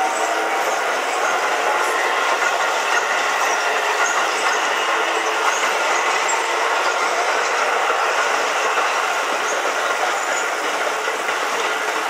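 Electric commuter trains passing over a level crossing at close range, with steady wheel rumble and clatter over the rail joints. Level tones run throughout, fitting a crossing warning alarm that keeps sounding while the barriers are down.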